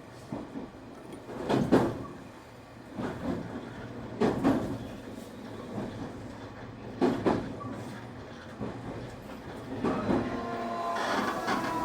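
Nankai 8300 series train running on rails: its wheels knock over rail joints every second or two. Near the end the whine of its Hitachi SiC VVVF inverter comes back, sinking slightly in pitch.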